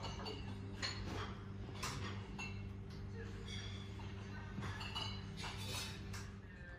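Glassware and dishes clinking: a series of light chinks, each with a short ringing tone, over a steady low hum and faint background voices.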